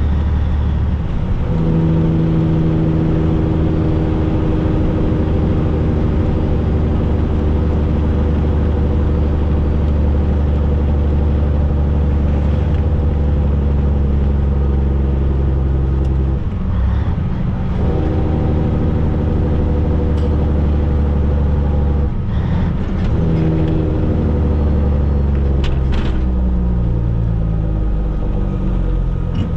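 Semi truck's diesel engine running under load, heard inside the cab, with two short breaks where the driver shifts gears. The engine pitch falls over the last few seconds as the truck slows.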